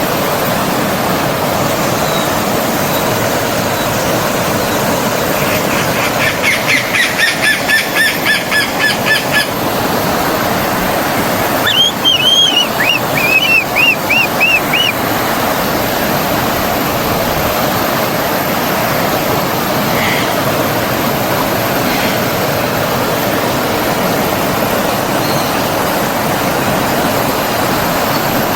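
Steady rush of a flowing forest stream, with birds calling over it: a run of quick repeated notes for about four seconds starting some six seconds in, then a short burst of chirping notes about twelve seconds in.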